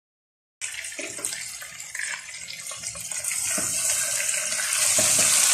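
Chicken pieces frying in ghee and butter in a nonstick pan: a hissing sizzle that starts abruptly about half a second in and grows louder. A spatula stirring the pieces gives a few low knocks and scrapes.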